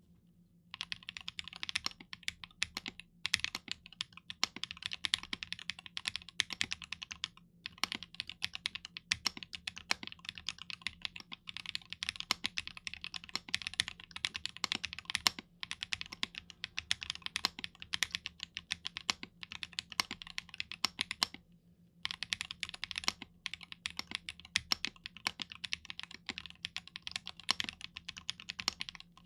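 Fast, continuous typing on a Chimera65 R2 custom 65% mechanical keyboard with a polycarbonate case, FR4 plate, GMK Hennessy keycaps and Sunny Side Up linear switches. The typing breaks off briefly about a quarter of the way in and again about three quarters through.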